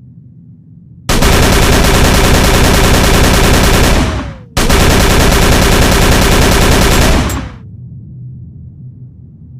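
Thompson submachine gun with a drum magazine, as a sound effect, firing two long bursts of rapid automatic fire of about three seconds each, the second starting almost at once after the first. Each burst ends with a short falling tone.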